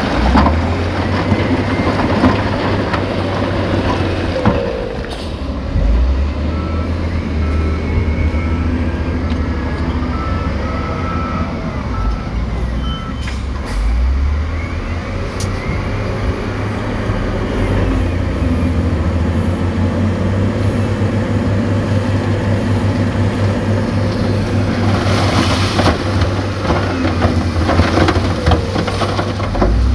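Heavy diesel engines of dump trucks and a wheel loader running with a deep, steady drone. A reversing beeper sounds a run of evenly spaced beeps for several seconds in the first half and starts again at the very end. A louder rushing noise comes for a couple of seconds near the end.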